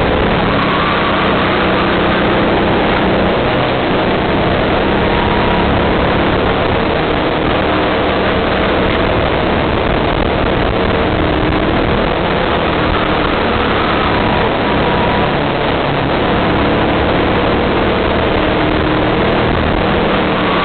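Kart engine running loudly at racing speed, heard from a camera mounted on the kart, its note shifting a little in pitch through the corners.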